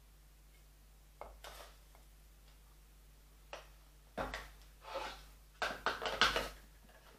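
A small screw-top jar being handled and closed: a couple of isolated clicks and short scrapes, then a busier run of clicks and rubbing in the second half as the lid goes back on.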